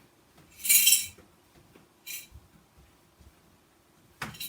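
Coins clinking as a piggy bank is handled: a rattle lasting about half a second near the start, a short clink about two seconds in, and another near the end.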